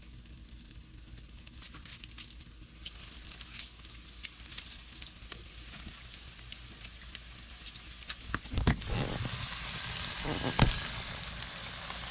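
Breaded porgy fillets frying in hot canola oil in a nonstick pan: a crackling sizzle that grows louder as more fillets go into the oil. A few dull knocks come in the last few seconds.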